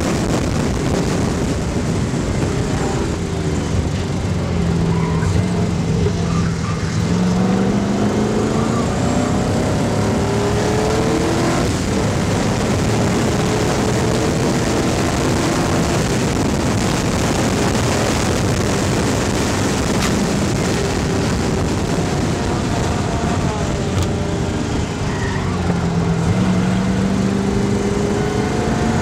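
Race car's GM LS 5.3-litre V8 (LM7) at full race pace, its pitch climbing under acceleration, dropping and climbing again, heard under heavy wind rushing over a roof-mounted microphone.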